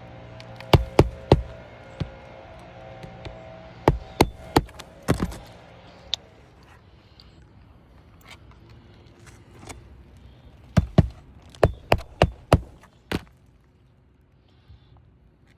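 Hammer tapping during a roof shingle repair, sharp strikes in quick clusters of two to four with pauses between, over a faint steady hum that fades out about six seconds in.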